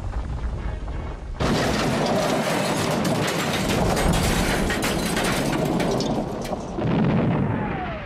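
Dubbed crash-and-explosion sound effect for a boulder smashing into a shed. A low rumble gives way about a second and a half in to a sudden loud blast full of crackling debris that goes on for about five seconds, then swells once more with a short falling whine and cuts off near the end.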